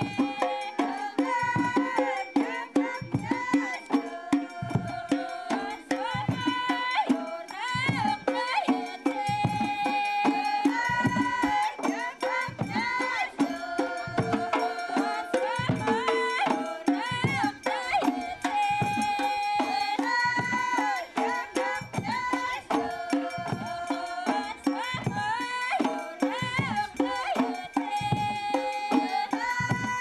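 Background music: traditional folk music, a melody moving between held notes over a steady hand-drum beat.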